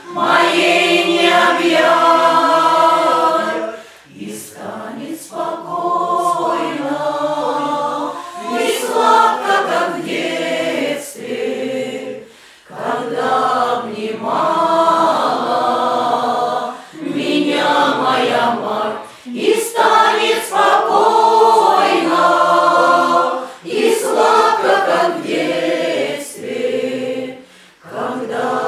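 Russian folk choir, mostly women's voices, singing together in phrases with short breaks between them.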